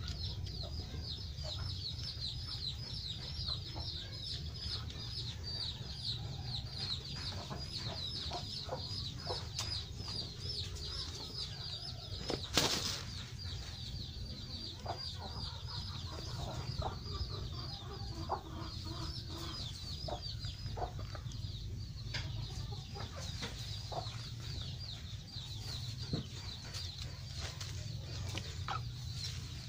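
A high, even chirping repeats about five times a second throughout over a low steady hum, with scattered soft clicks and one sharper click about twelve and a half seconds in.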